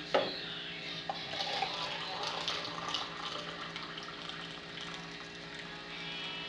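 A sharp knock just after the start as the small metal Stirling engine is set down on the table. Then water is poured from an electric kettle into a ceramic mug, a steady splashing pour that slowly fades.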